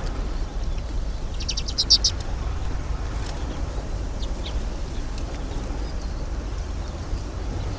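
A small songbird gives a rapid chattering run of high calls about a second and a half in, then a few single chirps, over a steady low rumble of strong wind buffeting the microphone.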